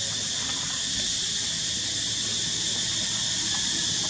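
Steady, high-pitched drone of insects in the trees, with no breaks.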